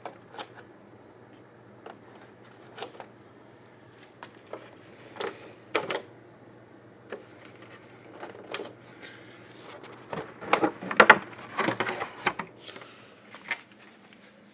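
Scattered clicks, taps and light knocks of a plastic RC car body being handled and turned over, with a busier run of louder clicking and rattling about ten to twelve seconds in.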